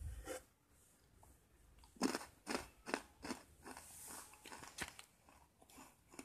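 A person biting into and chewing a roasted broad bean crisp: a string of crisp crunches starting about two seconds in.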